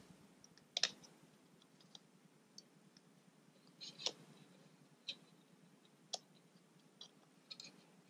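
Faint, irregular small clicks and ticks, about eight of them, from a metal screwdriver tip prying at the tiny Wi-Fi antenna connector on a Late-2012 Mac Mini's logic board to pop it off.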